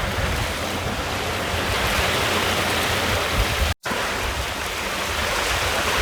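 Water rushing past the hull of a small sailboat under sail at about 7 knots, with wind buffeting the microphone. The sound cuts out completely for a split second a little past the middle.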